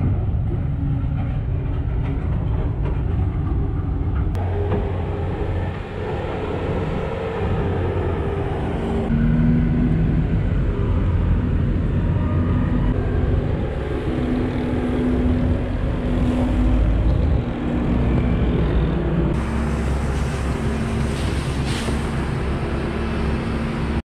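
Farm tractor engines running and working under varying load, their pitch rising and falling; the sound changes abruptly a few times.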